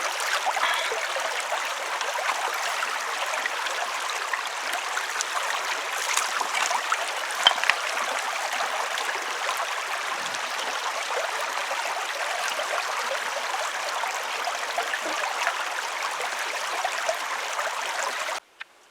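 Steady rush of flowing stream water, with faint scattered clicks over it; it cuts off suddenly near the end.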